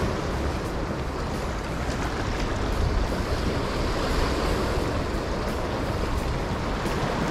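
Small waves washing and breaking over jetty rocks, a steady surf noise, with low wind rumble on the microphone.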